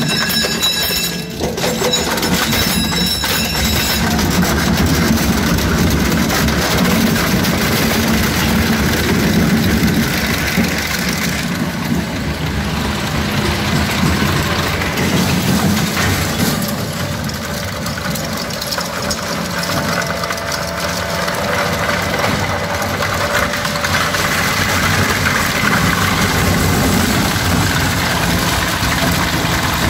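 ARP EZ 100 single-shaft shredder running under load, its toothed rotor grinding scrap against the comb-edged counter-knife: a loud, continuous grinding noise with many small irregular cracks.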